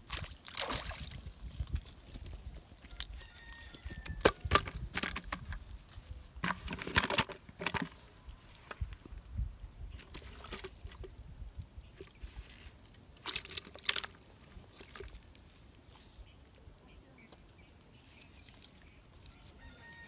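Splashing and rustling in several short bursts, the loudest around 4 to 5 seconds in, around 7 seconds, and near 14 seconds. Faint calls sound between them.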